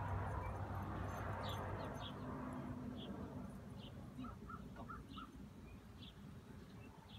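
Birds chirping: short high chirps about once a second, with a quick run of four lower notes about four seconds in. A low rushing noise fades away over the first two seconds.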